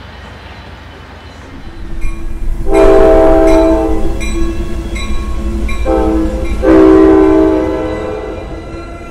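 Amtrak California passenger train passing close by, its horn sounding two long chord blasts, the second starting about four seconds after the first, over the rumble of the locomotive and cars. A bell strikes a little more often than once a second under the first blast.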